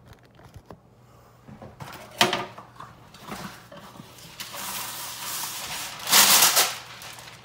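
Parchment paper being pulled from its box and a sheet drawn free: a paper rustle that builds over a couple of seconds and is loudest near the end. It follows a single sharp knock about two seconds in.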